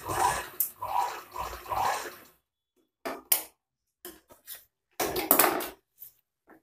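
Electric-motor sewing machine stitching denim in short pulsing runs for about two seconds. After a brief gap come scattered clicks and rustles of the denim being handled at the machine and pulled from under the presser foot.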